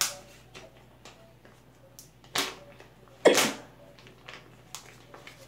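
Close handling noises as hands rub and fold a Pokémon card being cleaned: a few short rustles, the loudest a little past halfway, with light clicks between.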